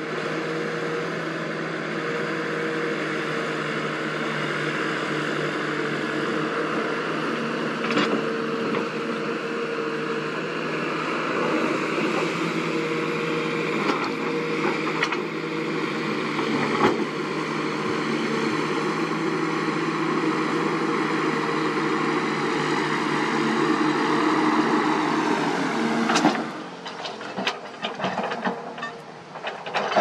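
A large engine running steadily at one unchanging pitch, which cuts off abruptly about 26 seconds in. A quieter run of clanks and knocks follows.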